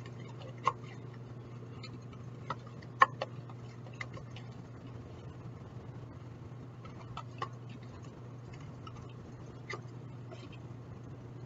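Scattered light clinks and taps of metal measuring spoons against ingredient containers and a glass measuring cup as dry ingredients are measured out, the sharpest about three seconds in, over a steady low hum.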